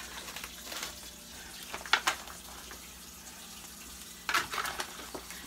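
Casserole mixture being mixed by hand in a metal baking pan: wet squelching and scraping, with a few brief louder knocks, the sharpest about two seconds in.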